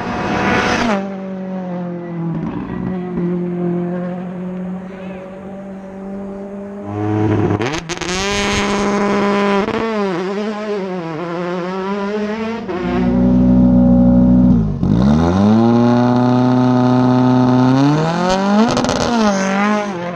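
Rally car engines working hard, the pitch climbing and dropping sharply again and again as the drivers change gear and lift off and get back on the throttle. It is loudest in the second half, with a dip and a fast climb in pitch about three-quarters of the way through.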